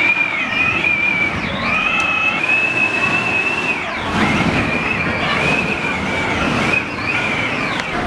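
Storm wind whistling through the gaps of closed sliding glass doors: a high, wavering whistle over a steady rush of wind, breaking off briefly about halfway through.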